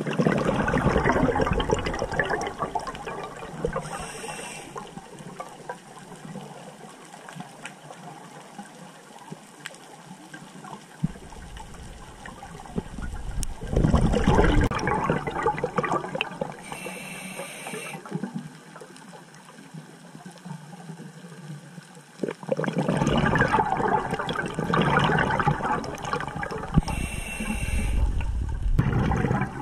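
A scuba diver breathing through a regulator underwater: loud bursts of exhaled bubbles about every ten seconds, with a short hiss of inhalation between them.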